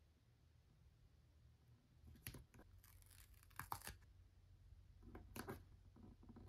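Faint scratchy rustling of a paper sticker sheet as stickers are peeled off their backing and rubbed down onto a printed poster, in a few short scrapes about two seconds in, between three and four seconds, and around five seconds.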